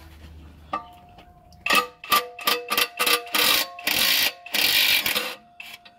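Cordless power tool run in a series of short bursts that lengthen into longer runs, spinning out a torque converter bolt. It starts just under two seconds in and stops a little after five seconds.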